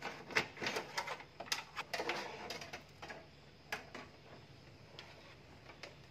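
Scattered light clicks and taps of a length of stiff metal wire being handled and worked, quick and frequent for the first three seconds, then only an odd tick.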